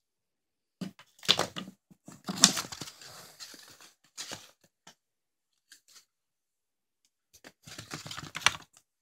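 Handling noise from firework rockets being picked up and moved: rustling and clicking of the wrapped rocket tubes and wooden sticks, in a few short bursts. The loudest come about a second and two and a half seconds in, with another cluster near the end.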